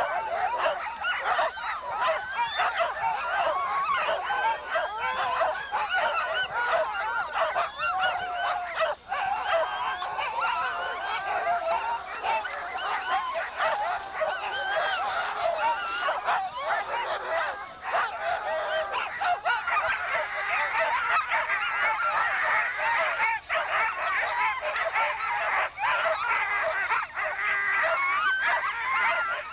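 Many sled dogs yelping and barking together, a dense chorus of overlapping high calls that never lets up.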